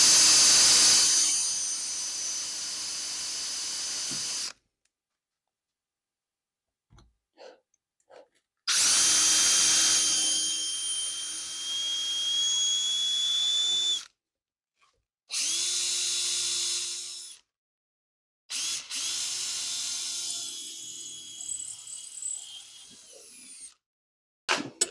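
Red cordless drill running in four bursts of a few seconds each, with a steady motor whine; in the second burst the whine rises a little as it speeds up.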